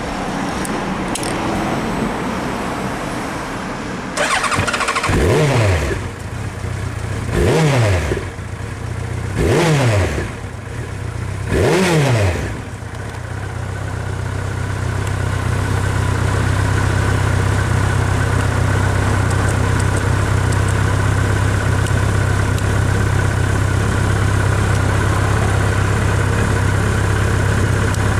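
Honda CB1300 Super Bol d'Or's inline-four engine idling through its stock exhaust, blipped four times in quick succession starting about four seconds in. Each blip rises sharply and falls straight back to idle, and the engine then settles into a steady idle.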